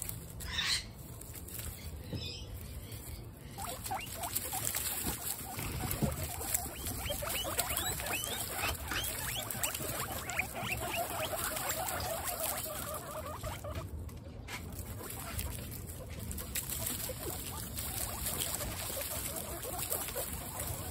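Several guinea pigs squeaking, with short chirps and calls, and shuffling through straw bedding close by, over a steady patter of rain.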